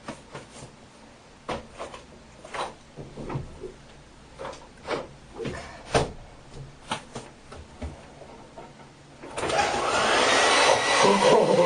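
A few scattered clicks and knocks, then about nine seconds in a hand-held hair dryer switches on and runs loudly, its motor whine rising as it spins up.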